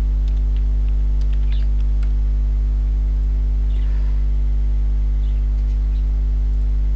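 Steady electrical mains hum with a stack of overtones, loud and unchanging throughout. A few faint keyboard and mouse clicks in the first two seconds.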